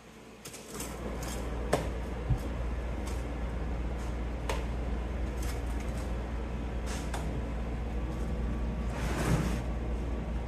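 Hands scooping wet mortar out of a plastic bucket, with a few scattered knocks and a short scrape near the end, over a steady low hum that starts about a second in.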